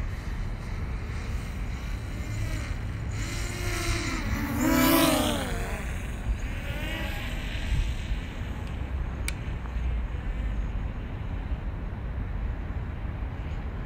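Steady low outdoor rumble, with a passing motor whose pitch rises and falls, loudest about five seconds in. A single sharp click a little after nine seconds.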